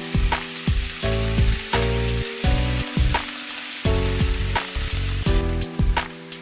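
Background music: blocks of sustained chords that change every half second or so, with sharp percussive clicks over a steady hiss.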